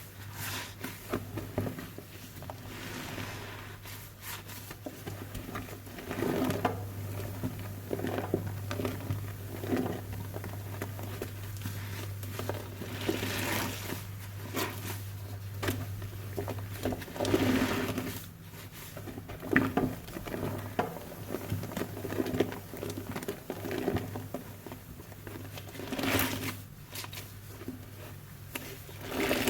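Wet, soapy sponge squeezed again and again, each squeeze a squelching, crackling swell of foam and liquid, over a steady low hum.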